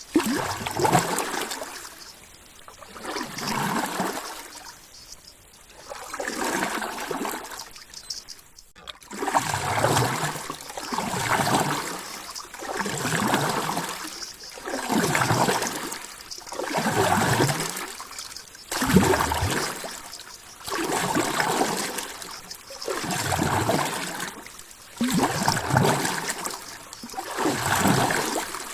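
Water sloshing and washing in regular swells, each rising and falling about every two seconds.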